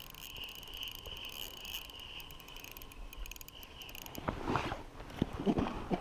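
Faint steady high buzz with fine ticking, then, from about four seconds in, a run of irregular crunching and scuffing on snow and ice as a perch is pulled up through an ice-fishing hole and landed by hand.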